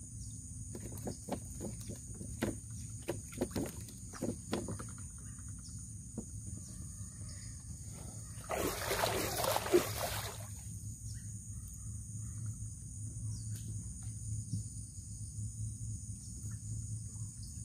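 Handling noises of hand-line fishing from a canoe: a scatter of small knocks and clicks, then a burst of splashing water at about nine seconds in, over a steady high insect drone.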